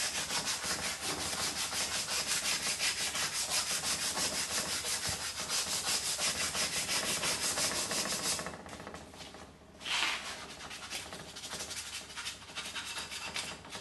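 Sandpaper rubbed by hand in quick, even back-and-forth strokes along the handle of a wooden spoon clamped in a vise. The strokes stop about eight seconds in, followed by quieter handling and one brief louder rub near ten seconds.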